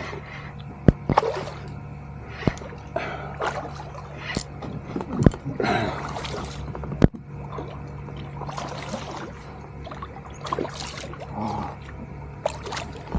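Small water splashes and trickling around a fishing kayak, broken by a few sharp knocks, over a faint steady low hum.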